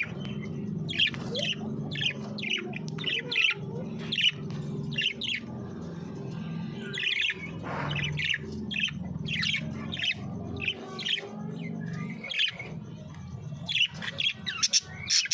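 A flock of small cage birds chirping, with many short, high chirps one after another, over a steady low hum.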